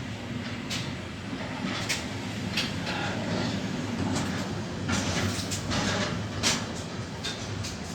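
Freight train rolling past: a steady low rumble of wagons, with irregular clanks and clatters of wheels over rail joints and short squeals.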